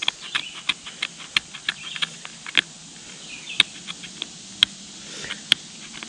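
Sharp edge of a ferro-rod striker scraping fatwood: a quick run of light scraping ticks, about three or four a second, thinning to a few sharp clicks about a second apart in the second half.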